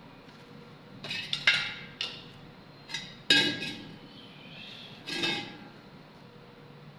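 Metal striking metal about six times at uneven intervals, each clank ringing briefly.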